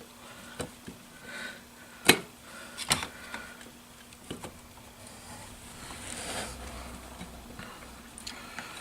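A few sharp clicks and knocks, the loudest about two seconds in, with soft rustling between, as the crankshaft main bearing of a 1963 Evinrude Lark 40 hp outboard is turned by hand to seat its locating pin in the case notch.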